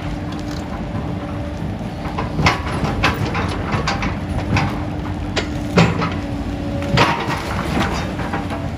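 Komatsu PC240 excavator running with a steady engine hum while its demolition grapple tears at the building. Irregular crunches and clanks of metal and debris break in, the loudest about two and a half seconds in and again near six seconds.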